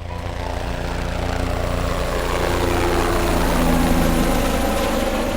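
A passing engine, swelling to its loudest about four seconds in and then fading, its pitch drifting slightly down.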